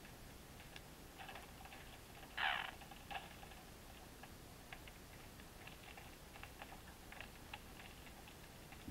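Faint, scattered light clicks and ticks, with one short louder scrape about two and a half seconds in.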